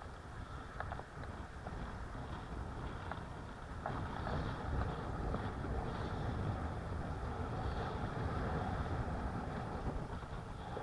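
Wind buffeting the microphone: a steady low rumble with hiss, gusting louder about four seconds in.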